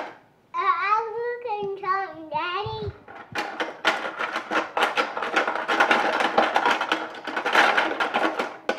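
A toddler's high voice, sliding up and down in a sing-song for about two and a half seconds, then a fast, continuous clatter of small objects rattled and knocked around in a pot.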